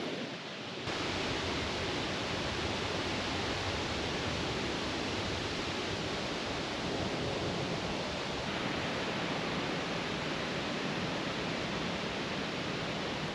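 Steady, even rushing noise with no distinct events, cutting in abruptly about a second in and holding level.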